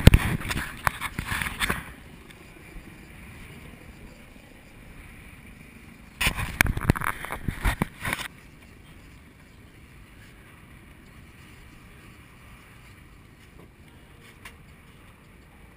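Steady wind and sea noise on a small offshore fishing boat, broken by two loud rough bursts of a couple of seconds each, one at the start and one about six seconds in.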